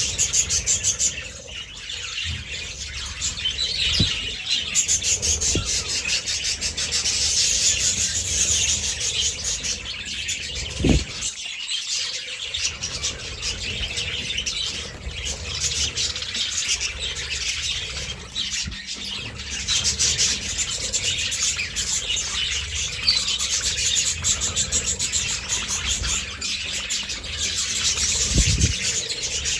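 Flock of budgerigars chattering and chirping continuously in an aviary, a dense overlapping warble, with a few low thumps.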